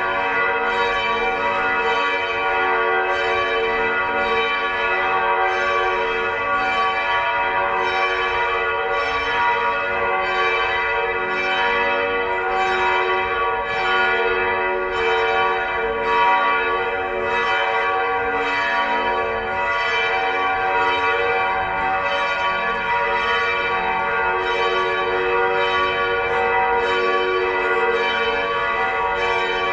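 Church bells of the Felsenkirche ringing together in a continuous full peal, their overlapping strokes coming about once a second over a sustained, dense ring.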